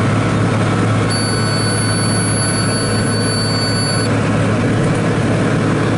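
John Deere 4055's six-cylinder diesel engine running steadily under load, heard from inside the closed tractor cab while pulling a round baler. A thin, steady high whine sounds from about one to four seconds in.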